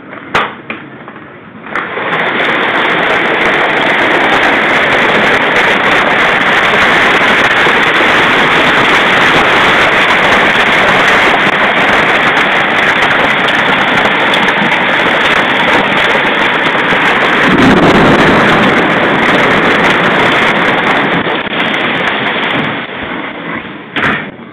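Heavy hail pelting down, a loud dense clatter that starts abruptly as a door opens about two seconds in and falls away as it closes near the end. A door latch clicks at the start and the door knocks shut near the end.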